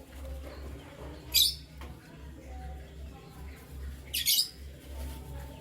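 Pet canaries chirping: a short, sharp, high chirp about a second in and a quick double chirp about four seconds in, over a low hum.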